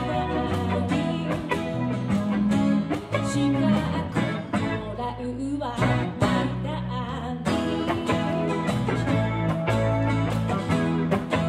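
Kayōkyoku song music with guitar and a steady beat, from a live stage performance.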